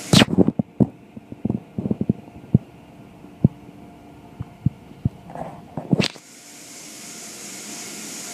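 Cloth strips and brushes of an automatic car wash slapping against the car's glass and body, heard from inside the car as irregular thuds. About six seconds in the thuds stop and a steady hiss takes over.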